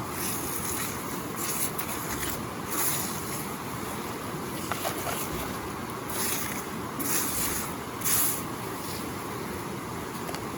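Steady rush of a stream's flowing water, with several brief, louder swishes.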